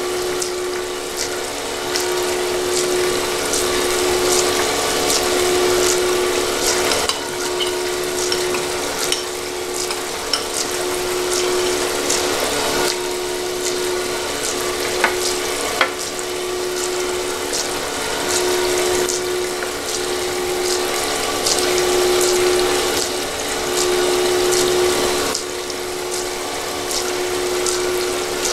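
Automatic gold panning machine running: a steady hum from the machine while recirculated water splashes off the rotating spiral pan into the tub below, with a few light clicks.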